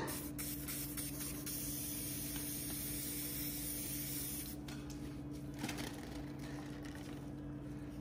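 Aerosol can of Bel-Ray foam filter cleaner and degreaser spraying in a long hiss onto a foam air filter, then fainter and broken off in the second half, soaking the foam to loosen the dirt.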